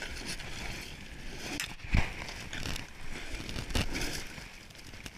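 Gravel and stones crunching and scraping at the water's edge of a stony shore beside a plastic kayak, with a heavier knock about two seconds in and another near four seconds.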